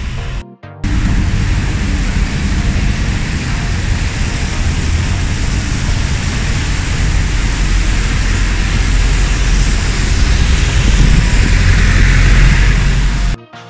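Rain falling and traffic on a wet city street: a steady hiss over a deep rumble, swelling louder toward the end. The sound cuts out briefly about half a second in and again just before the end.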